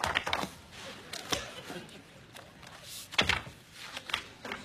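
Pages of a large book being turned and handled on a desk: a few separate papery slaps and thumps, the loudest about three seconds in.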